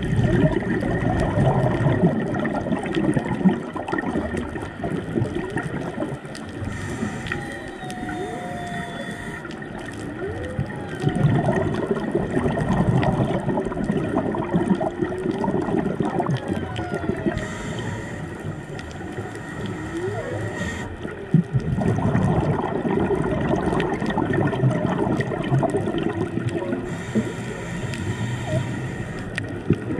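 Humpback whale song heard underwater: calls that slide up and down in pitch. They sit under the gurgle and hiss of a scuba regulator, whose breaths and rushing exhaled bubbles swell and ease in slow cycles.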